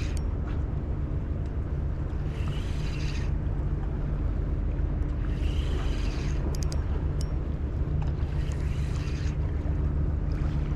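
Steady low engine hum, with a soft swish about every three seconds and a few light clicks about six to seven seconds in.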